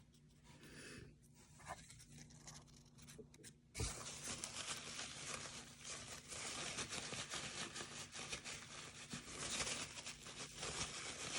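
Cotton swab scrubbing a brass padlock with Brasso polish: a fast, scratchy rubbing that starts suddenly with a low knock about four seconds in and keeps going. Before it there are only faint handling sounds.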